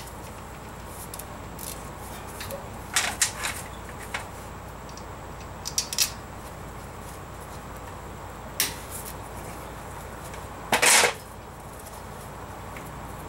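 Hand ratchet and brake caliper hardware clicking and knocking as the front caliper bolts are loosened. Scattered sharp clicks come through the first two-thirds, and a louder, rougher clatter of about half a second comes near the end.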